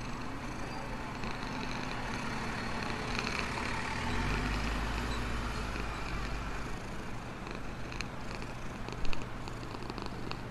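Black cat purring steadily while it eats. A single sharp knock sounds near the end.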